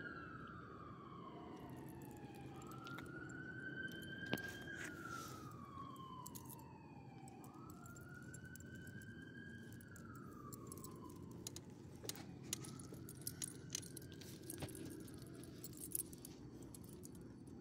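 A faint siren wails, its pitch slowly rising and falling in cycles of about two and a half seconds and fading away after the third rise. Light metallic jingles and clicks from the small dog's collar hardware come through, most of them in the second half.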